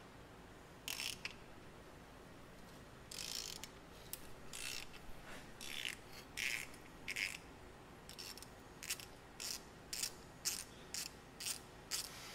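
Hand ratchet clicking in short runs as it is swung back and forth, backing a bolt out of a Ford 289 V8's cylinder head. The strokes come slowly at first, then quicken to about two a second in the second half.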